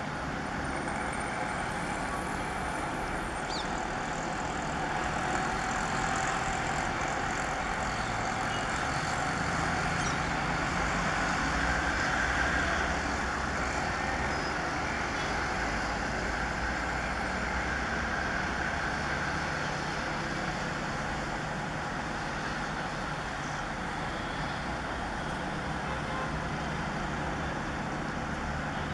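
WDG4D and WDG4 diesel locomotives working in multiple, their EMD two-stroke engines running as they haul an express train toward the listener: a steady low engine hum under a constant background hiss.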